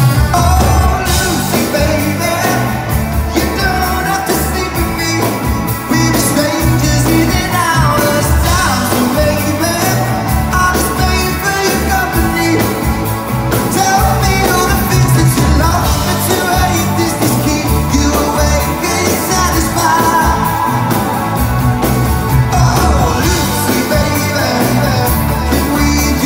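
Live rock band playing loudly and continuously: drums, electric guitars and bass, with singing at times, heard from within the audience.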